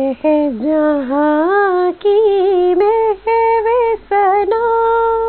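A woman singing solo and unaccompanied: the opening melodic phrases of an Urdu devotional nazm, in held, sliding notes with short breaks between them. The notes climb in pitch and end on a long held note near the end.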